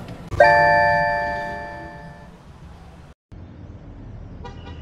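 A single bell-like ding, struck once and ringing out with several clear tones that fade away over about two seconds.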